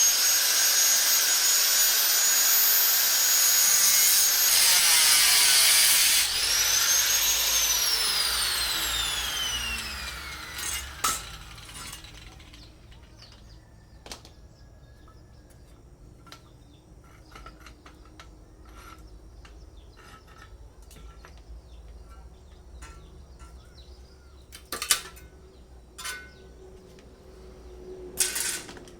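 Electric angle grinder running at a steady high whine. About six seconds in it stops, briefly restarts, then spins down with a long falling whine. Faint taps and clicks follow, with a few sharper knocks near the end.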